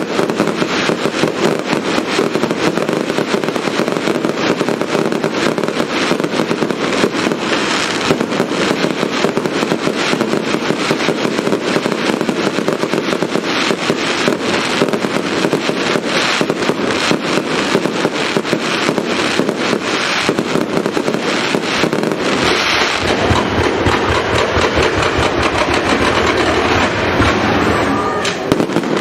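Fireworks barrage: a loud, unbroken run of rapid bangs and crackling from aerial shells bursting, with deeper booms joining in over the last several seconds.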